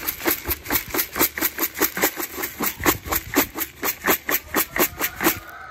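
Dry stock pellets and chopped corn shaken hard in a plastic bucket, a fast, even rattle of about five shakes a second that stops shortly before the end.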